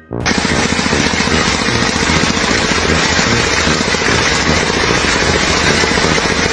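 A loud motor-driven machine running steadily with a rapid pulsing, cutting in abruptly.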